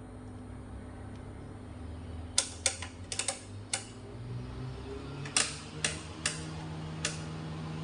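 Sharp, irregular clicks of an oscilloscope's rotary selector knobs being turned, a few at a time, starting a couple of seconds in. Beneath them is a steady low electrical hum from the inverter's transformer under test, which rises a little in pitch about halfway.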